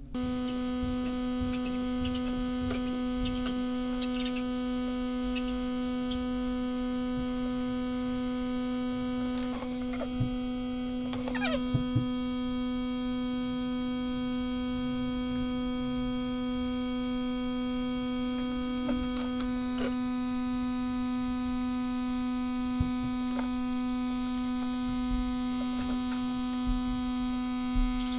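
Steady electrical hum, pitched with many even overtones, switching in abruptly and holding level throughout, with a few faint clicks about halfway through.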